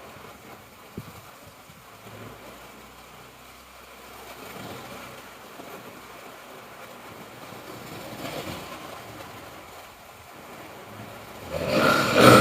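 A sleeping person snoring: breaths swell about every four seconds, then a much louder snore near the end.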